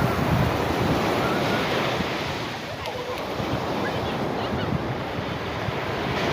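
Sea waves breaking and washing up on a beach, with wind buffeting the microphone. The surf is a little louder for the first couple of seconds, then eases.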